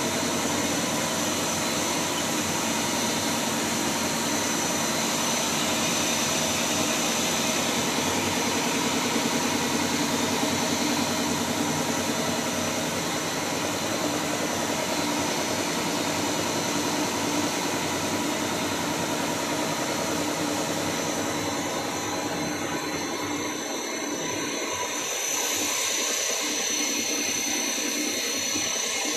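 HDPE pipe extrusion line running: a continuous mechanical drone with a steady high whine over it. The low drone thins out about three-quarters of the way through.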